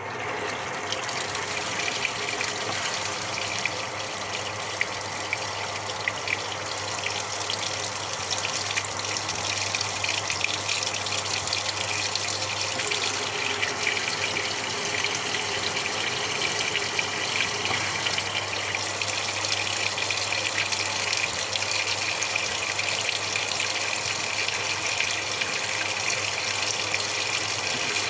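Samsung top-loader washing machine filling: water gushing steadily into the tub through the inlet valve, with a low steady hum, starting suddenly out of silence.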